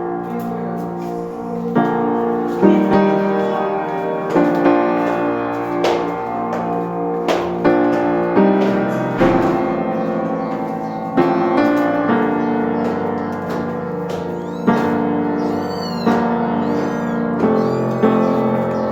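Background piano music: a slow melody with a new note or chord struck every second or so.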